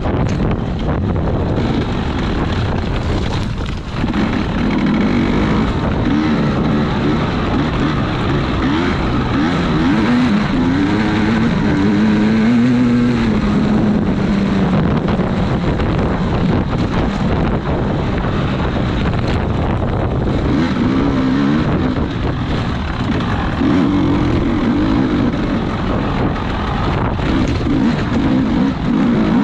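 A racing vehicle's engine revving up and down, its pitch rising and falling again and again over a steady low rumble.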